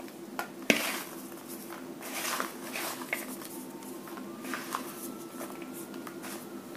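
Small paper slips rustling as they are tipped out of a plastic bowl and scattered over cards on a tablecloth, with irregular soft taps and crinkles.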